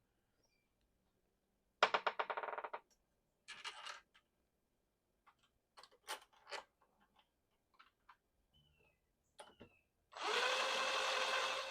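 Power drill driving the screws that hold the door lever lockset together: a short, rapidly pulsing burst about two seconds in and a brief second burst, with scattered clicks and knocks, then a steady whirring run from about ten seconds in.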